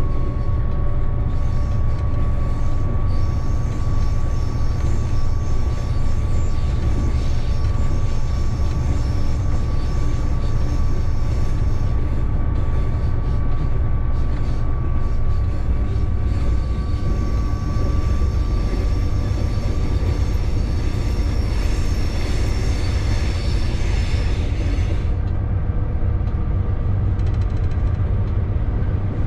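Locomotive running light, heard from inside the cab: a steady low rumble of the running gear on the rails with a thin steady whine that fades out a little past halfway. The higher hiss drops away a few seconds before the end.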